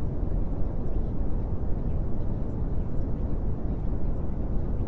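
Steady, deep rumbling noise with no changes, heaviest in the low end, with a few faint high ticks.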